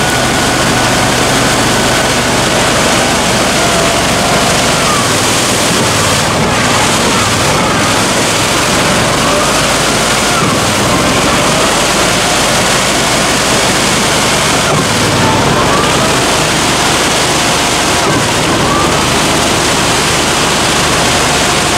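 Argo amphibious tracked vehicle's engine running hard under load as the machine churns through deep mud and water: a loud, steady engine-and-splash noise with no let-up.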